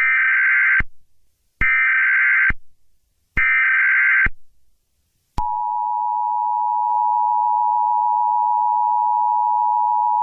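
Emergency Alert System alert: three short bursts of the SAME header's digital data warble, each under a second with short gaps between them. About a second after the third burst the EAS two-tone attention signal starts, a steady, loud dual-pitched tone that holds.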